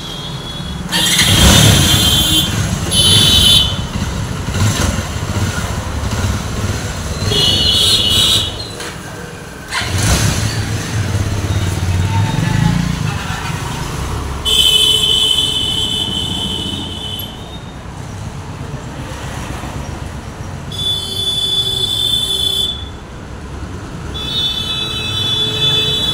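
Bajaj Avenger 220 motorcycle's freshly rebuilt single-cylinder engine, started and running, then revving as the bike pulls away. Street traffic runs underneath, with several short, loud horn honks.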